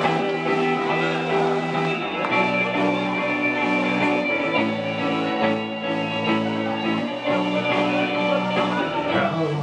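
Live band music led by electric guitars, ringing chords that change to new pitches every second or two.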